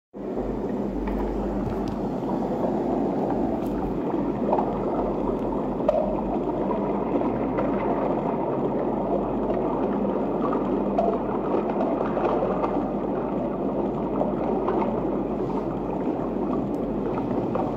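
Underwater ambience: a steady, muffled rush of water with scattered faint clicks.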